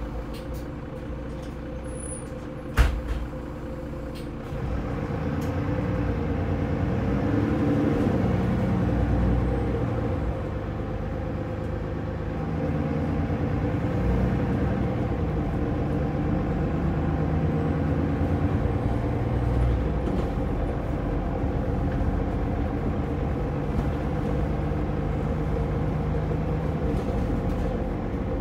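Mercedes-Benz Citaro bus's OM906LA six-cylinder diesel heard from the rear of the saloon. It idles, a sharp knock sounds about three seconds in, then the engine gets louder under load as the bus pulls away, its pitch rising and dropping several times as the ZF Ecolife automatic gearbox changes up.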